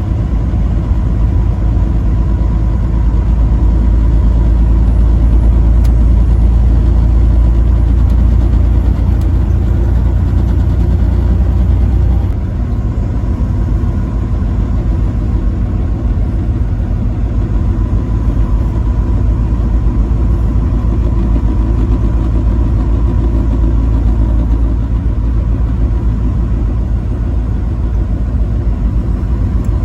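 A vehicle driving along a highway, its engine and road rumble running steadily with a faint steady whine. The low rumble drops a little about twelve seconds in.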